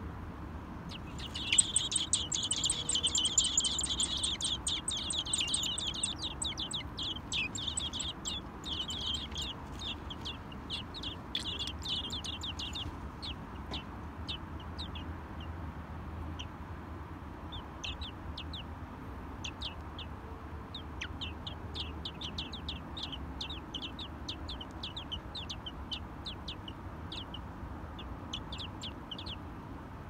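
Nestling songbirds calling inside a nest box: a dense burst of rapid, high cheeping starts about a second and a half in and is loudest over the next few seconds. After about thirteen seconds it thins to scattered short chips.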